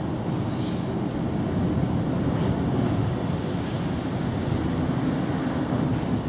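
Wind buffeting the microphone outdoors: a steady low rumbling noise with no let-up.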